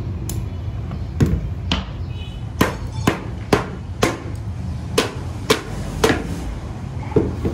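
Small hammer knocking on a fibreglass helmet mold, about eleven sharp knocks, roughly two a second after the first few, to loosen the cured helmet shell from the mold. A steady low hum runs underneath.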